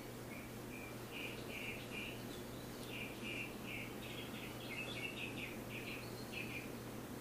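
A small bird chirping over and over in quick, short notes, with a faint steady hum underneath.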